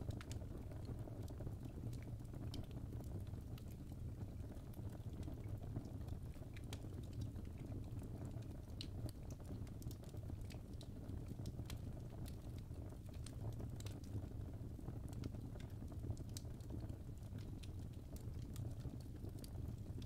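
Fire crackling: irregular sharp pops and ticks over a steady low rumble of burning flames.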